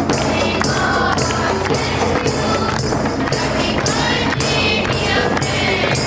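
A birthday song: voices singing together over music with a steady beat, about two beats a second.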